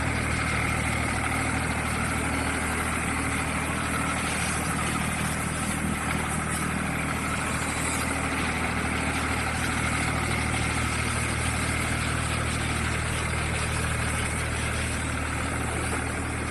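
Mini excavator's engine running at a steady, even speed.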